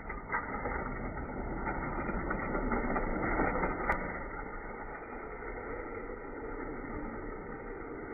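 Die-cast toy cars rolling down orange plastic track: a steady rolling rumble of small wheels on the plastic, with many small clicks and one sharp click about four seconds in.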